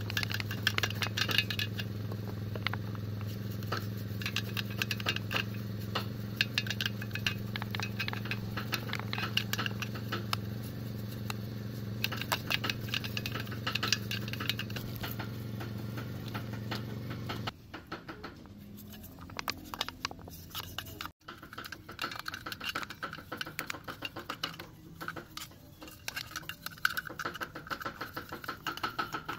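A paintbrush scrubbing and dabbing against a metal diesel engine casing: many small scrapes and clicks in quick strokes. Under it runs a steady low machine hum, which stops about two-thirds of the way through.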